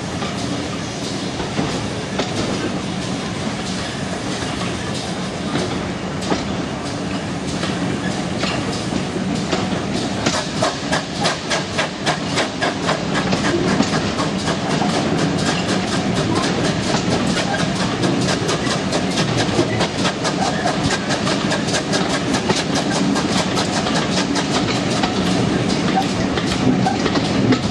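Steam-hauled train's coaches running along the track, heard from an open carriage window: a steady rumble, with a fast, even clatter of wheels over the rails setting in about ten seconds in and getting a little louder.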